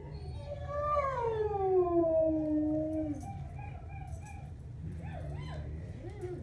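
A dog howling: one long howl of about two and a half seconds that slides steadily down in pitch, followed near the end by a few short wavering whines.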